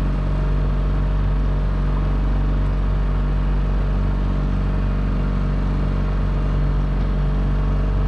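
Outboard kicker motor running steadily at constant throttle: an even engine drone that holds the same pitch and level throughout.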